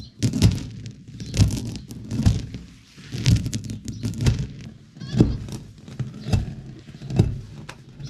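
Stone rotary hand quern turned by hand, grinding dried acorns into flour: a gritty stone-on-stone grinding rumble that surges about once a second with each turn of the upper stone.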